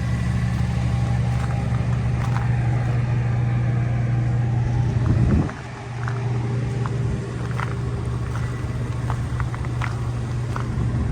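A vehicle running: a steady low drone, with a brief dip about five and a half seconds in and scattered light clicks over it.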